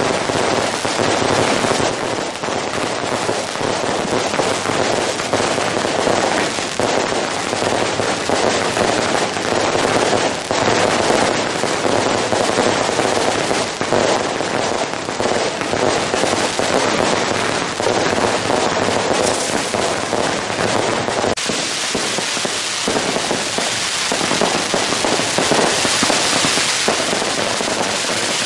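Long strings of firecrackers going off in a continuous dense rattle of bangs. About 21 seconds in, it thickens into an even, unbroken crackle.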